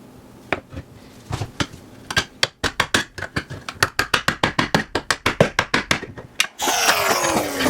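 Flathead screwdriver working a food tin can: a few scattered clicks, then a quick even run of sharp clicks, about six or seven a second. Near the end a louder, continuous rasping noise takes over, with tones sliding down in pitch.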